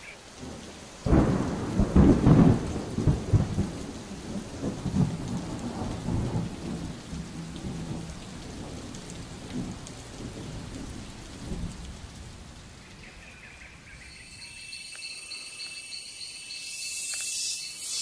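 A thunderclap breaks about a second in and rumbles, fading over some ten seconds, over the steady hiss of rain. Near the end, high-pitched pulsing calls join in.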